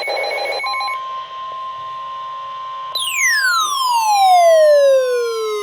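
Weather radio alert tone: a steady single tone near 1 kHz, the NOAA Weather Radio 1050 Hz warning alarm, starting about half a second in. About halfway through, a louder glide joins it, falling steadily from a high pitch to a low one.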